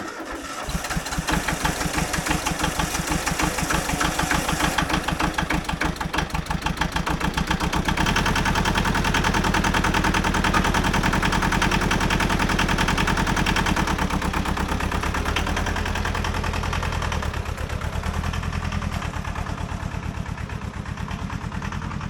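Hinomoto E14D compact diesel tractor engine running with a rapid, steady chugging. It grows heavier and louder about eight seconds in as the tractor is driven, then eases off a little near the end.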